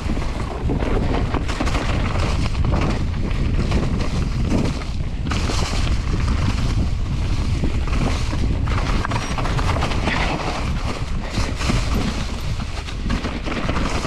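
A mountain bike rattling and knocking over rough trail, with frequent sharp thuds and wind buffeting a GoPro action camera's microphone as a steady low rumble.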